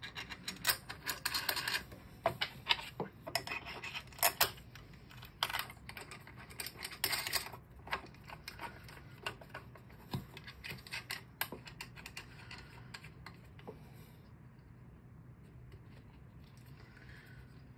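Metal burr carrier of a coffee grinder clicking, rattling and scraping against the grinder body as it is fitted and turned into place by hand. The clicks die away near the end.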